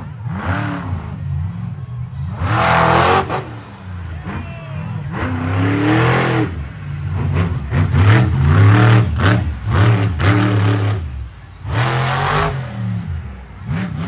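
Monster truck engine revving hard in repeated surges, the pitch climbing and falling again, loudest about a third of the way in and through the second half.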